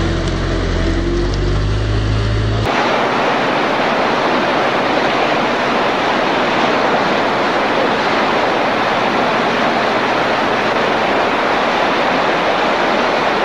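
A bus engine running with a steady low hum, cut off suddenly about three seconds in by a loud, even rush of fast-flowing floodwater that lasts the rest of the time.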